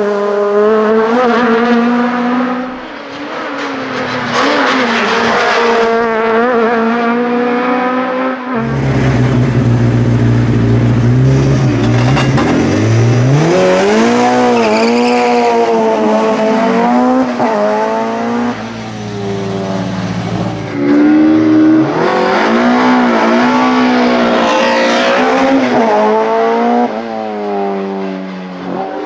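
A VW Golf GTI 16V hillclimb car's four-cylinder engine at full throttle, its pitch climbing and dropping with each gear change. After a cut about eight seconds in, a BMW 320si WTCC's two-litre four-cylinder idles low, is revved up for the start, then climbs through the gears.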